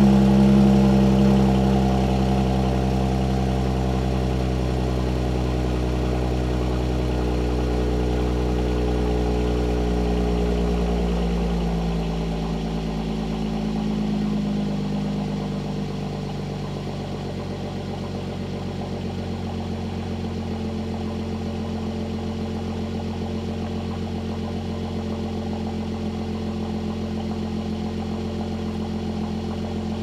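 Mercedes-AMG C43 (C450 4Matic) 3.0-litre twin-turbo V6 idling after a cold start, heard at the exhaust tips. The raised cold-start idle slowly drops in pitch and gets quieter, and about halfway through it settles into a steady, lower warm idle.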